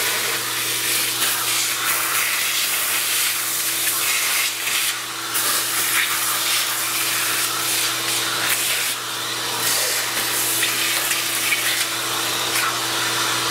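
A vacuum runs as its hose sucks metal chips off a milling-machine table. It makes a steady rushing hiss over a steady hum, and the level dips briefly a couple of times as the nozzle moves.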